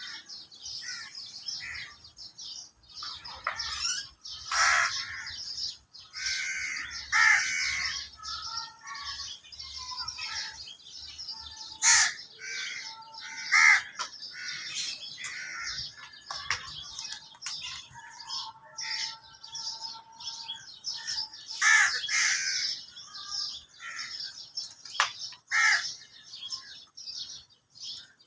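Mynas and crows calling together: a busy, continuous mix of chirps, whistles and chatter, with louder crow caws standing out every few seconds.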